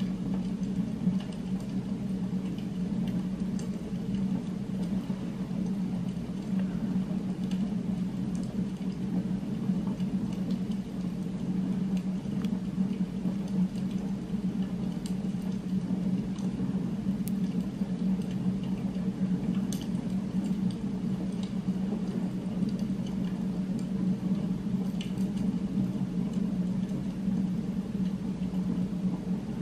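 Steady low rumbling drone of an ambient background soundtrack, unchanging throughout, with faint scattered ticks over it.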